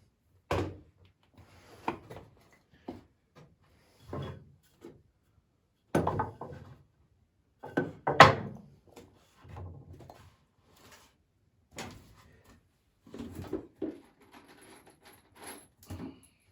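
Irregular wooden knocks and thumps as poplar boards and swing parts are handled and set down, the loudest about half a second, six and eight seconds in.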